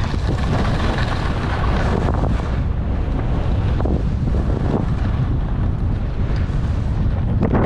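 Wind buffeting a mounted camera's microphone during a downhill ski run, with skis hissing and scraping over packed, groomed snow.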